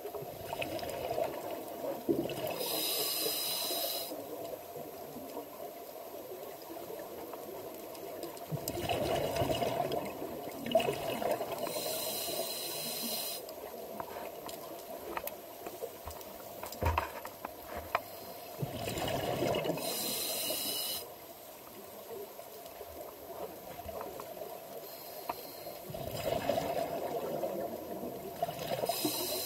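Scuba diver breathing through a regulator underwater: a hissing inhalation four times, about every eight to nine seconds, with gurgling bubble bursts from the exhalations in between.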